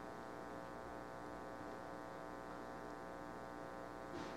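Faint, steady electrical hum with a buzzy edge. One faint tap comes near the end.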